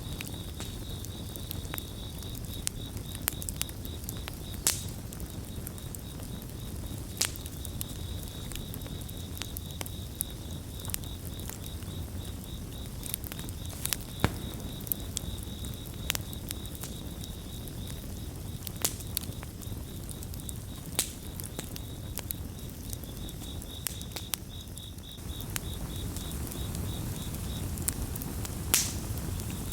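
Campfire crackling, with sharp pops scattered over a low steady rumble of flames, one louder pop near the end. Crickets chirp throughout in a steady pulsing high trill.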